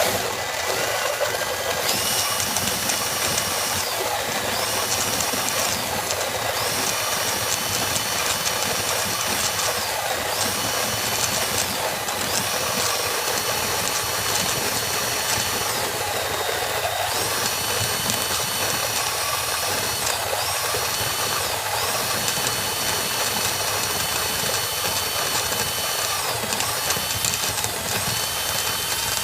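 Handheld drill spinning a Hario ceramic burr coffee grinder through a socket on a hex nut in place of the crank, grinding coffee beans. The drill motor whines steadily, stepping up and down in pitch every few seconds, over the noise of the burrs working the beans.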